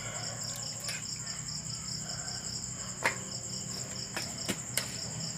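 Crickets chirping in a steady, fast-pulsing high trill, with a few sharp clicks, the clearest about three seconds in.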